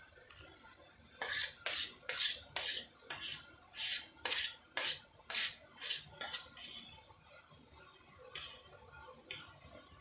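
A utensil scraping a bowl in quick repeated strokes, about two a second, then two more strokes after a short pause.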